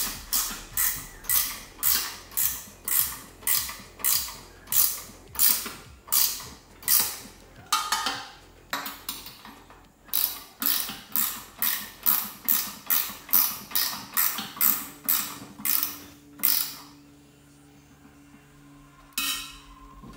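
Socket ratchet clicking in quick repeated back-strokes, about three a second, as nuts are run down on the studs holding an intake plenum to the lower intake manifold. There is a short pause midway, the clicking stops near the end, and a single stroke follows just before the end.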